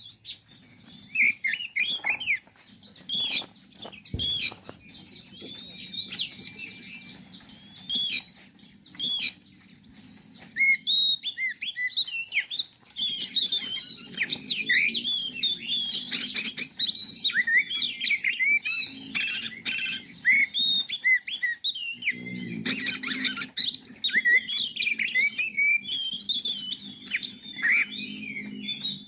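Oriental magpie-robin song: rapid, varied whistled phrases, chirps and trills. The song is sparser for the first several seconds and becomes almost continuous after about twelve seconds.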